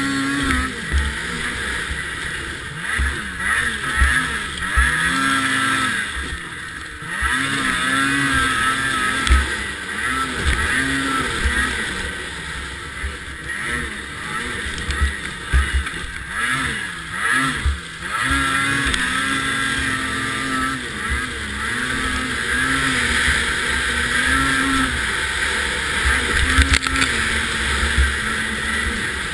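Snowmobile engine racing around a snowcross course, revving up and dropping back many times as the throttle is opened and eased, heard from on the sled. Low thumps come and go underneath.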